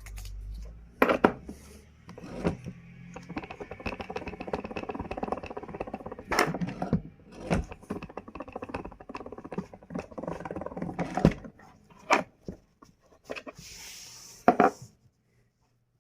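A dog's sounds in a small room, with a long rough pulsing stretch in the middle and sharp knocks and clicks scattered throughout.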